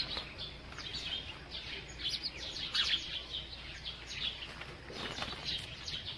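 Small birds chirping and twittering: a steady run of quick, high chirps over a faint low hum.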